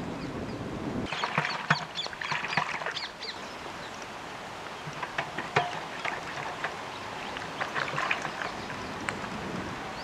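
Water splashing and sloshing in a steel basin as hands rub and rinse a whole chicken, with many short splashes and drips. A low rumble stops about a second in.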